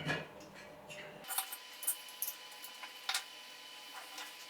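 Small metal machine-kit parts being handled: a soft knock, then a scatter of light metallic clicks and taps as pieces are taken off.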